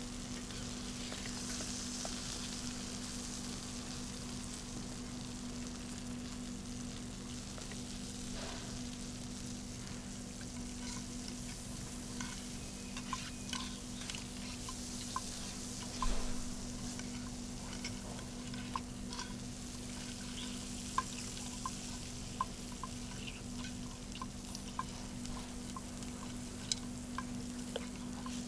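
Vegetables sizzling as they fry in a pan, stirred with a metal spoon that scrapes and taps the pan in short clicks from about halfway in, with one louder knock a little past the middle. A steady low hum runs underneath.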